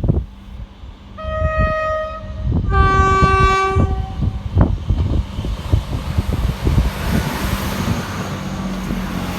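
A passing train sounds a two-tone horn: a short higher note about a second in, then a longer, lower, louder note. The train's rumble and the rhythmic clatter of its wheels over the rail joints run underneath and swell near the end as it goes by.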